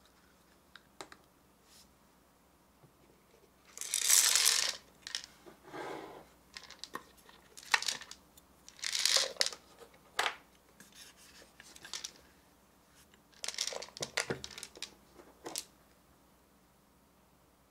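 Hard plastic parts of a toy popcorn maker being handled: the clear container and red lid are moved about and the lid's centre cap is twisted, giving short scrapes, rubs and clicks in several bursts, the loudest about four seconds in.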